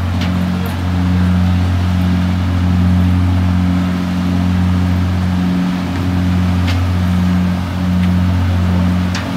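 Diesel machinery of moored Léopard-class navy training ships running at idle: a steady low hum with a few light clicks over it.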